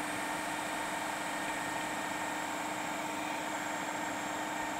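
Steady hiss of a small fan running, with a low, even hum beneath it and no strokes or changes.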